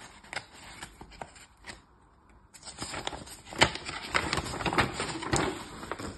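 Folded paper poster rustling and crinkling as it is unfolded by hand, dropping off for a moment about two seconds in, then busier with a few sharper crackles.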